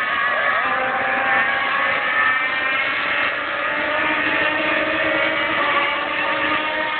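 Several radio-controlled racing hydroplanes running flat out together, their high-pitched motor notes overlapping and sliding in pitch as they race past.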